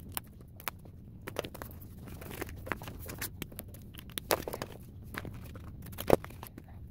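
Tape-covered paper craft and a paper envelope crinkling and rustling as they are handled, in short irregular crackles and clicks, with a sharper snap about six seconds in.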